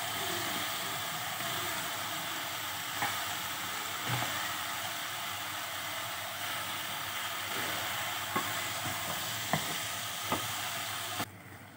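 Chopped spinach frying in hot oil in a pot, a steady sizzle with a few light knocks as it is stirred with a wooden spoon. The sizzle cuts off suddenly near the end.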